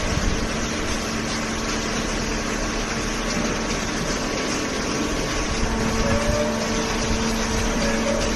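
Hydraulic baling machine running: a steady pump and motor hum with a constant mechanical noise and no let-up.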